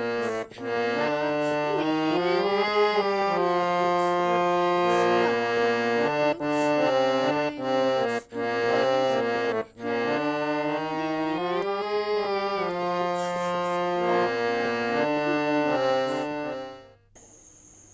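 Music of held reed-organ notes and chords, with a melody that steps and wavers in pitch. It cuts off suddenly near the end, leaving crickets chirring faintly.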